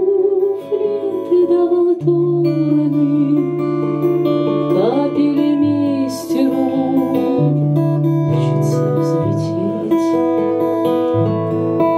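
Instrumental passage from a small acoustic band: strummed acoustic guitar with saxophone and piano, a sliding melody line carried over held low notes that change every couple of seconds.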